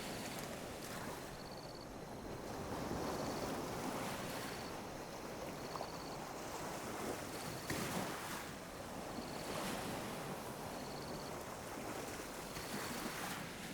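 Small ocean waves lapping on a beach: a steady wash of water that swells and eases every few seconds. A faint high chirp repeats about every two seconds over it.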